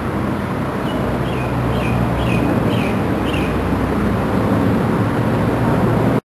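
Steady low rumble of traffic noise, with half a dozen short falling chirps between about one and three and a half seconds in.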